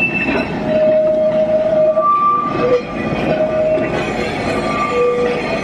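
Blackpool illuminated heritage tram (the Western Train set) rolling past on street track, its wheels rumbling with repeated short squeals at shifting pitches, each lasting about half a second to a second.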